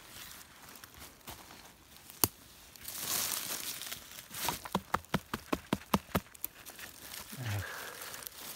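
Dry leaf litter rustling and crackling as a hand works a large bolete mushroom loose from the forest floor. There is one sharp click a couple of seconds in and a quick run of sharp ticks in the middle.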